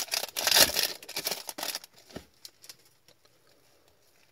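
Foil wrapper of an Upper Deck Extended Series hockey card pack being torn open and crinkled by hand, with loud rustling for about the first two seconds. Then come a few soft clicks as the cards are slid out, and it goes quiet.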